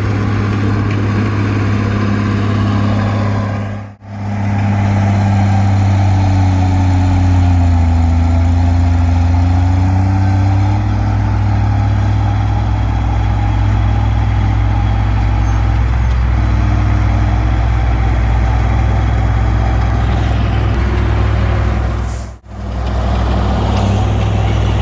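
Komatsu D20P bulldozer's diesel engine running steadily under load, its pitch dipping and rising once a few seconds in. The sound drops out briefly twice.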